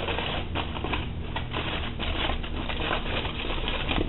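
Aluminium foil crinkling and rustling, with many small irregular crackles.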